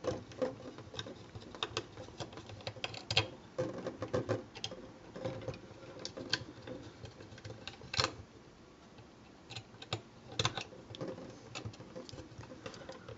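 A small screwdriver working screws out of a hard plastic action figure, with hands handling the plastic parts: irregular light clicks and taps, a couple of them louder, about two-thirds of the way through.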